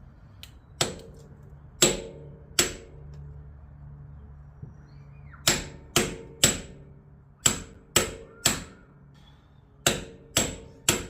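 Hammer striking a bushing driver to drive a new tailshaft bushing into a 200-4R transmission's tail housing: about a dozen sharp metal-on-metal blows, mostly in quick groups of two or three, each ringing briefly.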